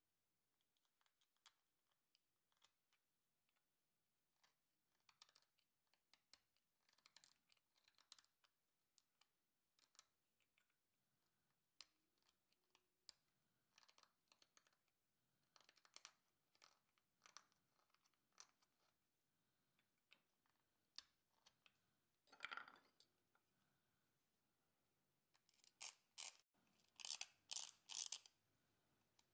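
Small hand carving chisel and blade paring and scraping a tagua nut (vegetable ivory): faint, irregular short cutting strokes, louder and more frequent near the end.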